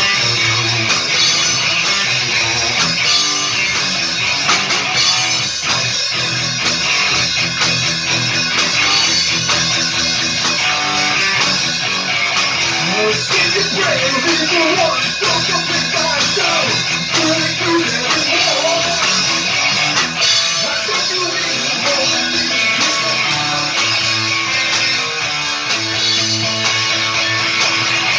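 A rock band playing live: electric guitars over a drum kit, continuous and loud. Around the middle, a lead line bends up and down in pitch for several seconds.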